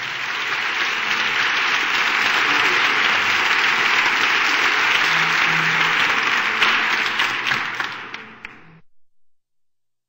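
Audience applause after a song with guitar: a dense clapping that holds steady, then thins to a few separate claps and stops about a second before the end.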